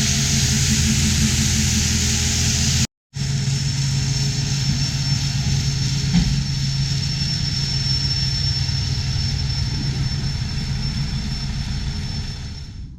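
A vehicle engine running steadily under a strong, even hiss of air, with a faint high whine. The sound breaks off for an instant about three seconds in and resumes, then fades near the end.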